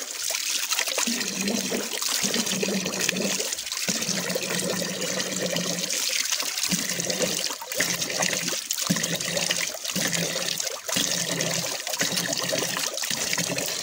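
Running water trickling and splashing as a man rinses his mouth and face with handfuls of water, the flow broken briefly every second or so as his hands catch it.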